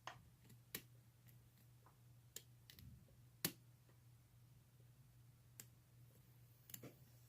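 Faint, scattered clicks of a lock pick and tension wrench working the pins and warding in the keyway of a vintage Yale padlock during single-pin picking, with one sharper click a little past halfway. A faint steady low hum lies underneath.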